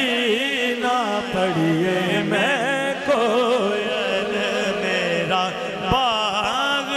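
A male voice sings a naat in long, ornamented notes that waver and glide in pitch, over a steady low drone.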